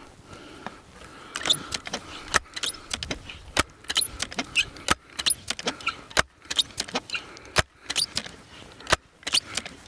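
Benjamin Sheridan Blue Streak multi-pump air rifle being pumped up: a run of sharp metallic clicks and clacks from the pump lever over several strokes.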